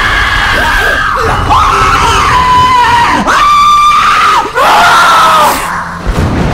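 Screaming from a haunted-house ghoul: long, high cries one after another that stop about five and a half seconds in.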